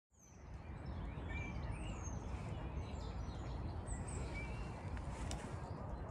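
Outdoor ambience fading in: small birds chirping and calling in short high whistles and slides over a steady low rumble.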